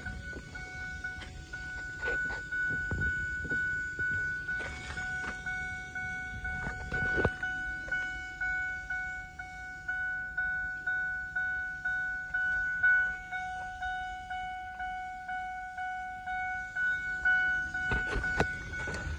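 A 2005 Ford F-150's dashboard warning chime dinging over and over at a steady pace, a little over once a second. It is the alert that sounds while the driver's door stands open. A few handling knocks come near the start and near the end.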